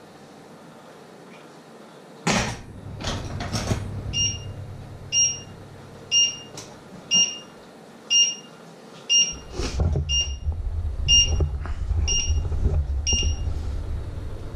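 Electronic cooktop timer alarm beeping: ten short, high-pitched beeps about one a second that stop near the end. A few knocks come just before the beeping starts, and a low rumble runs under the later beeps.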